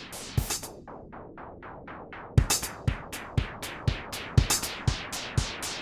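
Background music: an electronic drum-machine beat, with quick hi-hat-like ticks and a kick drum coming in about two seconds in, beating about twice a second.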